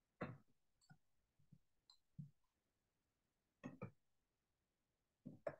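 Faint computer keyboard keystrokes: a handful of short, isolated clicks at uneven intervals, including a close pair about two thirds of the way in and another just before the end, with near silence between them.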